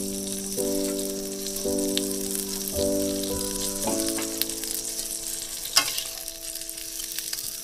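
Hilsa fish pieces sizzling in spiced oil and gravy in a metal pan, a steady hiss, with a sharp click of the spatula against the pan about six seconds in. Background music of sustained chords plays under it, changing about once a second at first, then holding one chord.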